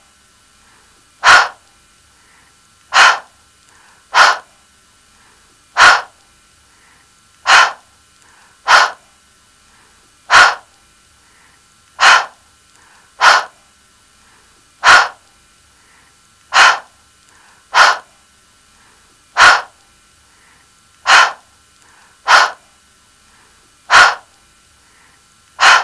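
The phonics sound /h/ said over and over as a short, voiceless, breathy puff, like panting out of breath. About seventeen puffs, one every second and a half or so.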